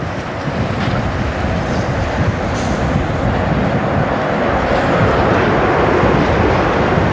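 Loud rushing wind of a large tornado passing close by, mixed with wind buffeting the microphone, growing louder toward the later part.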